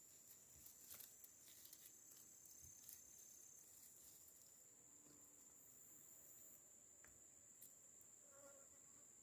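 Near silence, with the faint steady high-pitched trill of an insect and a few faint clicks.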